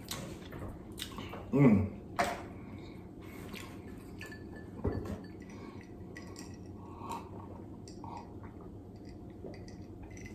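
Close-up eating sounds: chewing and the clicks of steamed clam shells being pulled apart by hand, with a brief hum about one and a half seconds in. From about six seconds on, only faint sounds of drinking from a glass mug.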